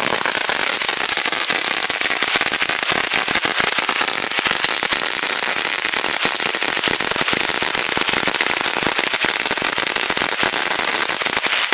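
A firework on the ground going off in a dense, unbroken rattle of rapid small bangs, like a long string of firecrackers, stopping abruptly near the end.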